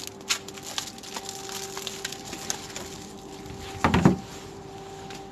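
Scattered rustles and clicks of food packaging being handled in a dumpster, with one loud knock about four seconds in, over a steady low hum.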